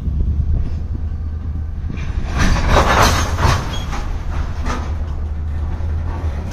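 Freight train of covered hopper cars rolling slowly past, a steady low rumble with wheels clacking and rattling over the rails. It is loudest from a little after two seconds in to about three and a half seconds in.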